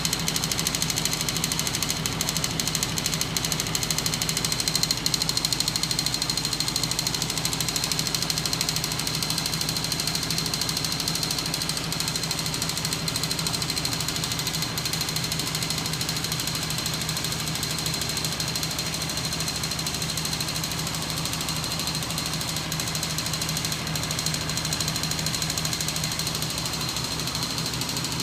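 Homemade crank-and-rocking-arm magnet engine rig running steadily, driven by a battery-powered electric motor: a fast, even mechanical clatter with a steady high whine over it.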